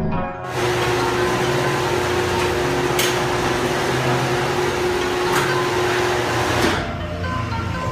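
A motor-driven machine runs for about six seconds with a steady hum and a dense whirring noise. It starts and stops abruptly, and a few sharp clicks sound during the run.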